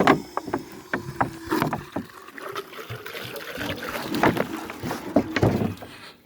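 Water sloshing and splashing as it is carried and poured by hand, with irregular knocks and thuds.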